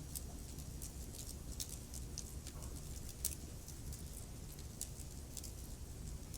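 Wood fire in a fireplace crackling: irregular sharp snaps and pops over a low, steady rumble of the burning logs.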